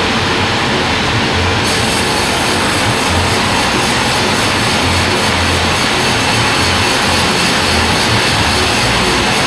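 Log band saw (gergaji selendang) running loud and steady while sawing timber into boards, a dense mechanical hiss and whine. About two seconds in the high hiss steps up and holds.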